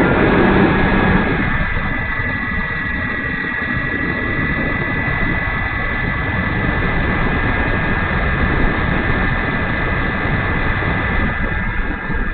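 E-flite Timber RC plane's brushless electric motor and propeller running with a steady high whine over a noisy rumble.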